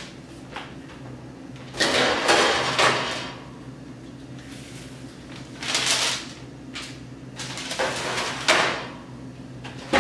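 Metal baking sheets of cookie dough being handled and slid into an oven, in three scraping, clattering spells about two, six and eight seconds in.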